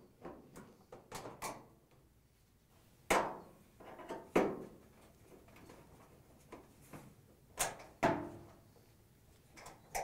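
Phillips screwdriver taking the front-panel screws out of a sheet-metal dryer cabinet: a few light clicks, then four sharp metallic knocks that each ring briefly.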